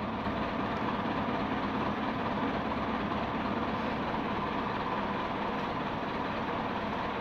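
Mitsubishi Colt Diesel truck's diesel engine idling steadily.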